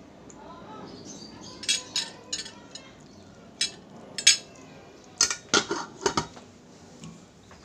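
Metal spoon and fork clinking and scraping against a ceramic plate: a string of sharp, irregular clicks, the loudest a little over four seconds in and several close together near the end.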